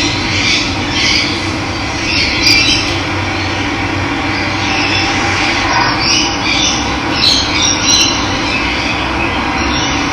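Steady rush of running water, with birds chirping over it now and then.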